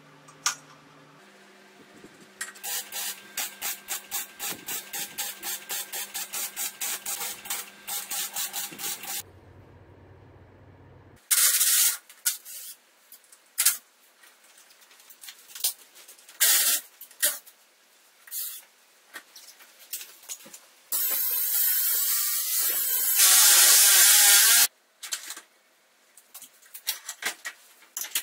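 Aerosol spray can hissing, first in several short bursts and then in one long spray lasting about four seconds. Earlier there is a fast run of clicks, about four a second, for several seconds.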